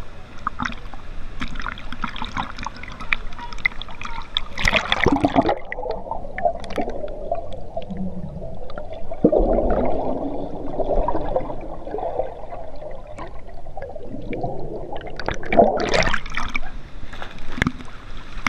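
River water splashing at the surface, then a splash about five seconds in as the microphone goes under: some ten seconds of muffled underwater sound with bubbles, before a second splash as it breaks the surface again near the end.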